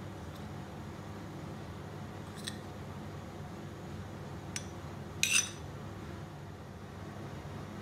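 Steady low hum with two faint clicks, then a brief, louder double clink a little after five seconds in.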